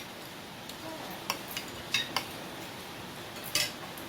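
Spoons clinking against plates and bowls while eating: a few scattered clinks, the loudest about three and a half seconds in.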